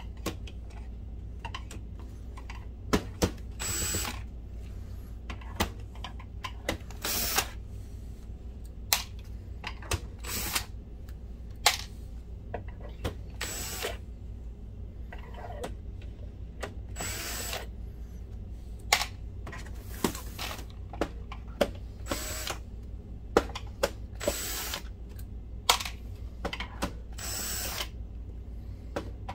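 Cordless drill/driver backing screws out of the projector's plastic base. The motor runs in about nine short bursts, a few seconds apart, and sharp clicks and taps fall between them.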